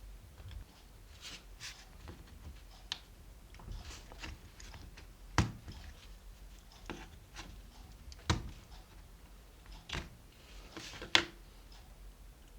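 Hands handling small hard parts of a kettle's dry-boil thermostat on a bench: scattered light clicks and taps, with four sharper knocks about five, eight, ten and eleven seconds in.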